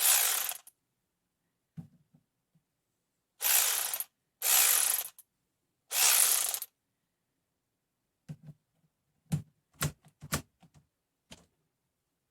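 RUYIKA 3/8-inch-drive cordless electric ratchet running in four short bursts of under a second each, followed by several light clicks and knocks as the tool is handled.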